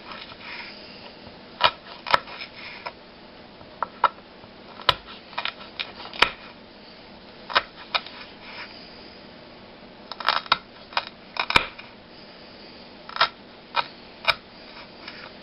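Kitchen knife slicing a jalapeño pepper on a cutting board: irregular sharp clicks of the blade striking the board, some in quick clusters.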